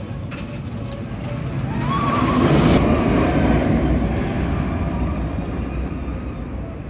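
Silver Star, a Bolliger & Mabillard steel mega coaster, with its train rushing past on the track: a rumbling roar that swells to a peak about two and a half seconds in, then fades as the train climbs away.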